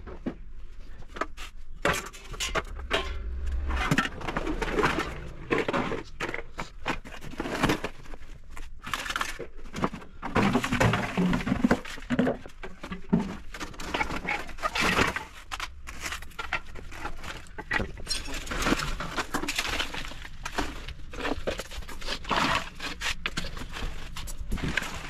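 A pile of junk being moved about by hand: continual clattering, knocking and rustling of plastic bags, pipes, wire and containers, with a few sharper knocks.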